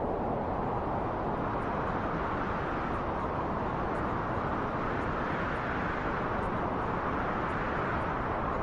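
Wind blowing steadily as a rushing noise, with a gust swelling about halfway through and then easing.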